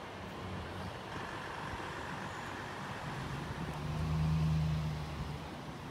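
A motor vehicle's engine running under steady outdoor background noise. The engine grows louder about three and a half seconds in, then fades again about a second and a half later.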